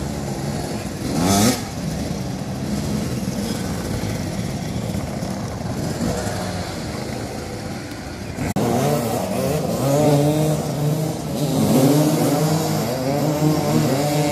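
Several motoball motorcycles revving and idling together, their engine notes rising and falling as they manoeuvre; one bike revs up sharply about a second and a half in, and the engines get suddenly louder about eight and a half seconds in.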